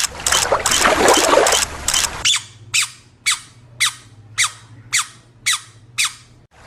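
A rapid rhythmic rasping squeak for about two seconds, then a string of about eight short squeaks, each falling in pitch, roughly two a second.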